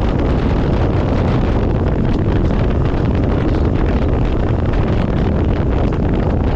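Loud, steady wind buffeting the microphone of a camera on a moving vehicle, with vehicle noise underneath.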